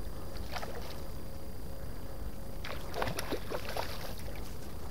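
A small hooked trout splashing at the lake surface as it fights on the fly line: a short splash about half a second in, then a cluster of splashes around three seconds in, over a low steady rumble.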